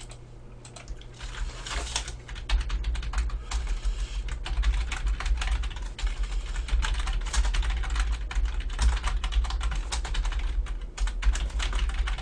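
Rapid, irregular clatter of typing on a computer keyboard, over a steady low hum.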